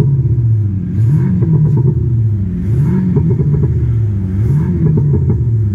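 Thor electronic exhaust sound generators on a Mercedes playing a simulated Ferrari exhaust note as the engine is blipped in a series of short revs, each one rising and falling back in pitch.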